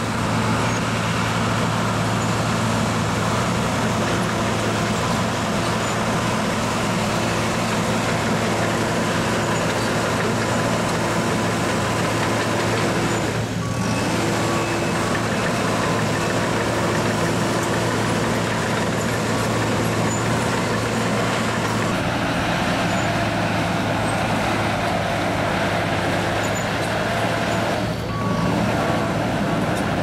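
Case 650M WT crawler dozer's diesel engine running steadily under load as the machine tracks and pushes dirt, a constant low hum with a steady whine above it. The sound dips briefly twice, about halfway through and near the end.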